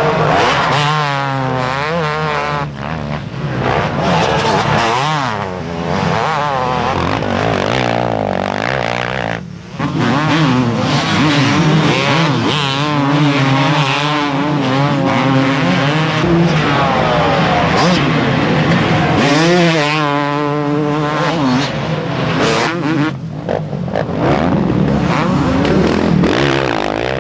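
Motocross bikes racing past one after another, their engines revving hard with the pitch swinging up and down as the riders work the throttle and gears.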